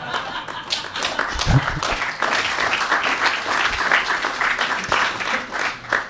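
Audience applause: many hands clapping together, fading out near the end.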